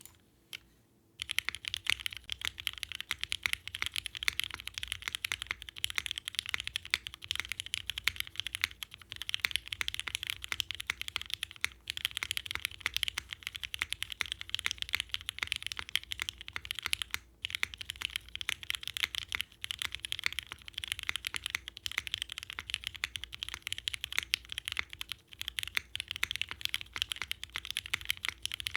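Fast continuous typing on a Bakeneko keyboard with Cherry MX Black linear switches on an aluminium plate and ABS keycaps. It starts about a second in and breaks off briefly about halfway through.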